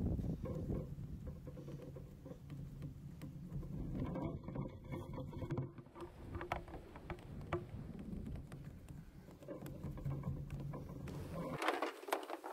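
Faint rustling and light scraping as a wire is fed by hand through a hole in a camper shell's roof, with scattered small clicks over a low steady rumble.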